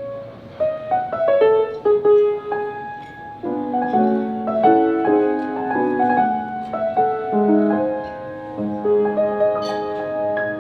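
Piano music: a melody of separately struck notes over held chords, played at a moderate pace.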